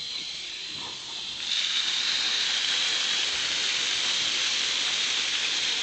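Water gushing from a railway water column and splashing onto the ground beside the track. It starts suddenly about a second and a half in as a steady loud rush.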